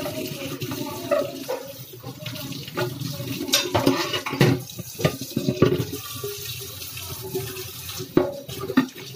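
Kitchen tap running into a stainless steel sink while plates are washed, with a few sharp clinks and knocks of crockery against the sink through the middle and near the end.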